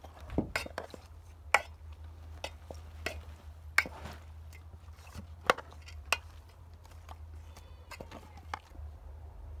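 A metal spoon knocking and clinking against a metal pot at irregular intervals as raw fish pieces are stirred into a thick spice marinade, with about a dozen sharp clicks.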